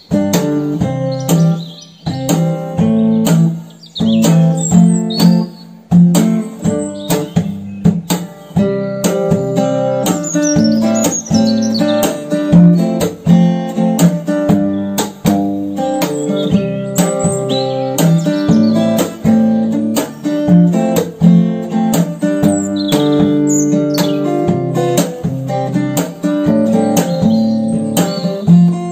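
Background music led by a plucked acoustic guitar, with a steady rhythm.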